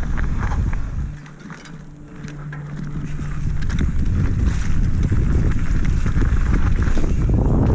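Mountain bike riding downhill: wind rushing over the action camera's microphone, with the tyres rolling over gravel and then dirt singletrack. About a second in, the rush drops for a couple of seconds and a steady low hum comes through, before the wind and trail noise build up again.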